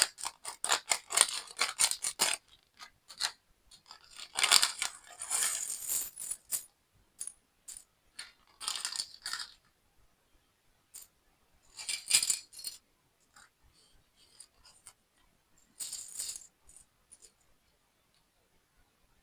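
Small plastic building-block pieces rattling and clicking as they are handled, in several short bursts of quick clicks with scattered single ticks in between.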